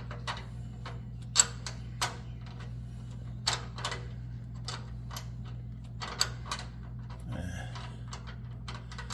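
Brake fluid dripping from a disconnected brake line into a plastic tote: sharp, irregular ticks every half second or so, over a steady low hum.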